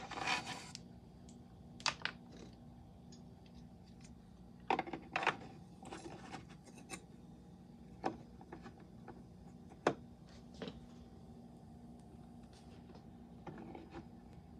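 Scattered clicks and light knocks of hard plastic toy parts being handled, with a brief rustle at the start.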